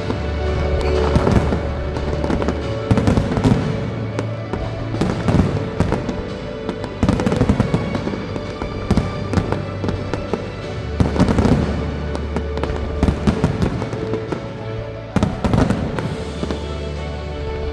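Fireworks going off in rapid clusters of bangs and crackles, over loud music with a deep, sustained bass.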